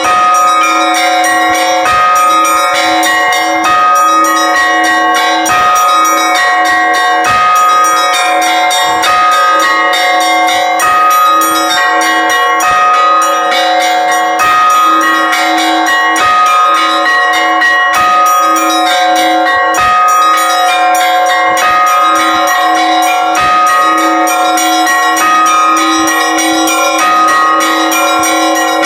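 Russian Orthodox church bells rung in a continuous peal (zvon). Small bells are struck rapidly over a steadily repeating stroke on a middle bell.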